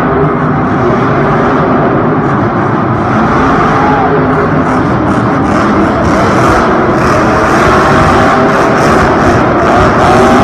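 Grave Digger monster truck's supercharged V8 running hard and revving through a freestyle run, echoing around a stadium. Crowd noise mixes in, with crackling clapping and cheering from about halfway on.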